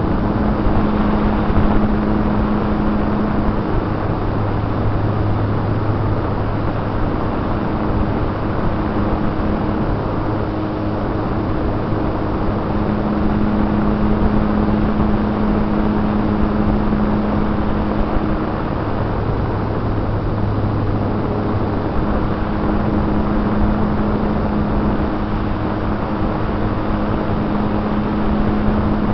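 Model plane's motor and propeller heard from a camera mounted on the plane in flight: a steady low hum that grows stronger and weaker at times, under a heavy rush of wind over the microphone.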